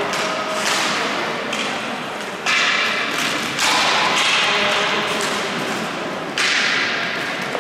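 Hockey match play: sticks striking the ball and the ball banging into the rink boards, with three loud sharp knocks that echo through the hall, the first about two and a half seconds in, the next a second later and the last near the end.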